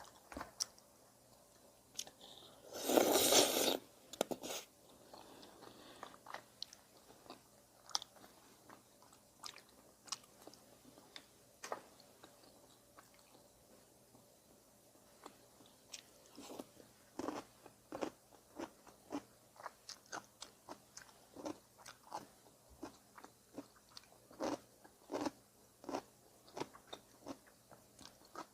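Close-up mouth sounds of someone eating udon with chewy rice-cake mochi: a loud slurp lasting about a second, about three seconds in, then steady wet chewing clicks and smacks, about two a second in the second half.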